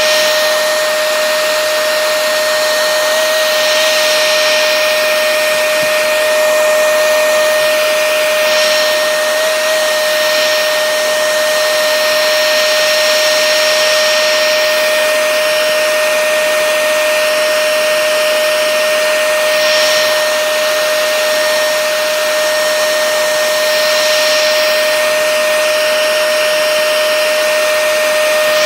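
Remington 1875-watt hair dryer running steadily, a loud blowing rush with a constant whine, as it heats the adhesive under a cracked iPad Air's glass to loosen it.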